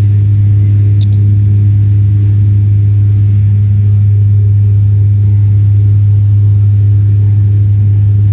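Airliner engine noise during the climb after take-off: a loud, steady low drone with a strong hum. Two short high ticks sound about a second in.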